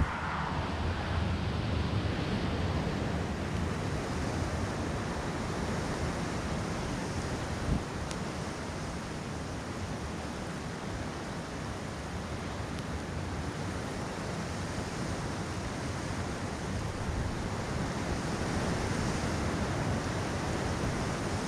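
Steady wind noise on the microphone of a crashed drone lying in grass, with one short knock about eight seconds in.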